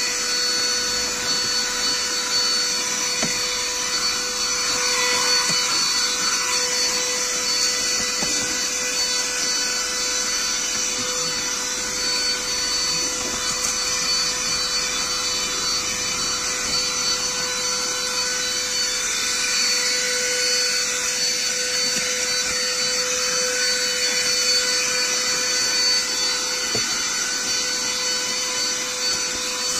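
12 V, 120 W handheld car vacuum cleaner running steadily, a constant motor whine over a rush of air, while its nozzle is worked over a rubber car floor mat.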